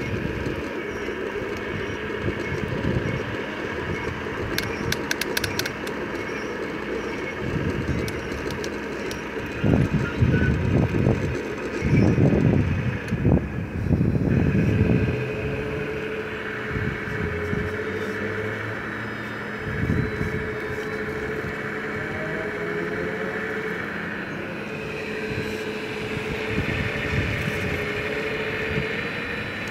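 Scale RC hydraulic excavator (Wedico CAT 345D LME) working, its hydraulic pump running with a steady whine that drops out briefly now and then. Louder rumbling comes between about ten and fifteen seconds in, and a few sharp clicks come around five seconds.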